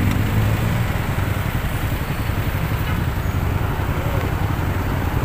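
Motorcycle engine running at a steady pitch over a constant rush of wind and road noise.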